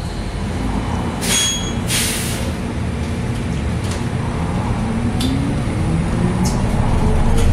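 Cabin of a New Flyer battery-electric bus under way: steady road rumble, two short hisses a little over a second in and at two seconds, then from about halfway the electric drive motor's whine rising steadily in pitch as the bus speeds up.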